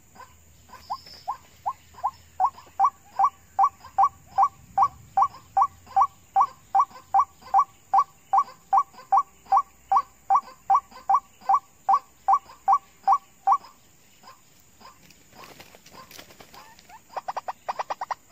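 White-breasted waterhen calling: a long, even series of short calls, about two or three a second, that stops about 14 seconds in. A brief rustle follows, then a fast burst of louder calls near the end.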